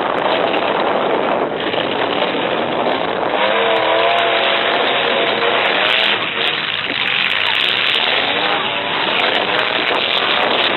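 Several full-size pickup trucks' engines running hard and revving in a demolition derby, with the pitch wavering up and down. A few sharp clatters come a little after the middle.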